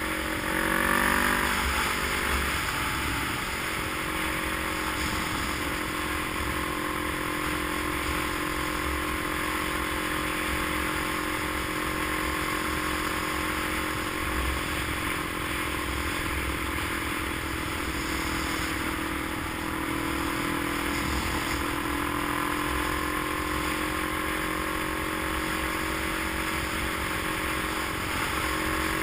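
A motor vehicle running steadily, its engine hum over a constant rumble of road noise; the engine's pitch shifts briefly about two seconds in.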